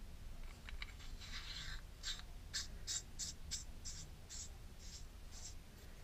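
Metal threads of an aluminium tactical flashlight's bezel being screwed back onto the body by hand: a run of short, faint scrapes, about two or three a second, after a few light clicks.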